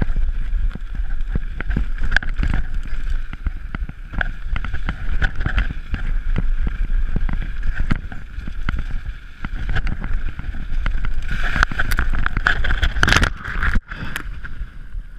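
Mountain bike rattling and clattering at speed over a rough gravel track, with wind buffeting the bike-mounted camera's microphone. About twelve seconds in there is a louder burst of clatter and scraping as the rider crashes, and it cuts off sharply just before the end.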